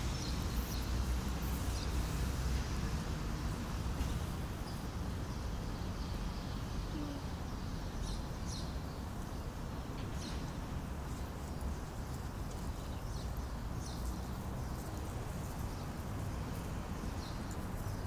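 Open-air ambience: a steady low wind rumble on the microphone, with scattered short, high bird chirps throughout.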